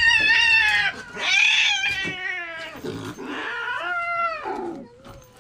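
Cat yowling in about four long, wavering calls: the angry, defensive caterwaul of a cat that does not want to be handled.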